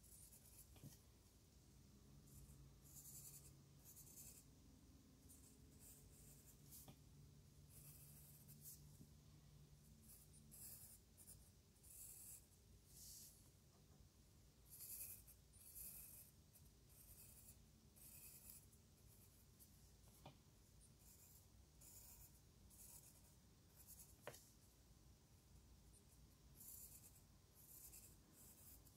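Faint pencil lead scratching on lined notebook paper in many short, irregular strokes as curved lines are drawn, with a couple of light clicks.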